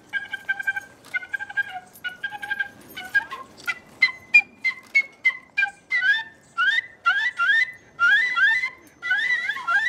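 Small wind instrument played in quick, short staccato notes, several a second, at first on one steady pitch. From about the middle it changes to quick upward-sliding notes, two or three a second, with a gobbling, bird-like sound.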